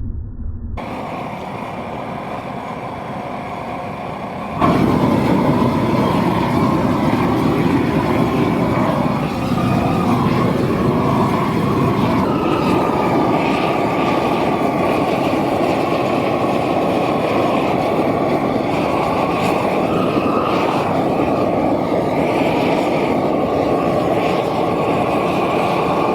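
Tractor engine running steadily under load. It gets abruptly louder about four and a half seconds in.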